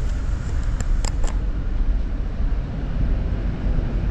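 Steady low rumble inside the cabin of a Volvo 9600 sleeper bus standing with its engine idling, with a few light clicks about a second in.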